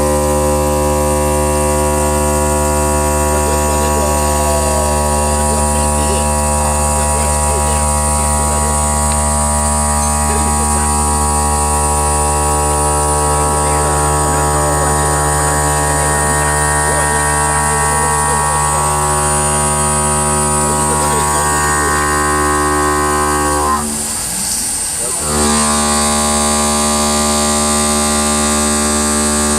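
CNC stone machine's motor running with a steady, loud electric hum made of many even tones. It cuts out briefly about 24 seconds in, then picks up again.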